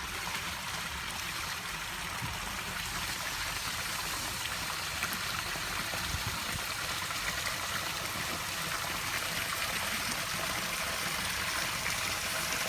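Backyard rock-garden waterfall: water spilling over rocks and running down a small stream, a steady rushing splash that foams white.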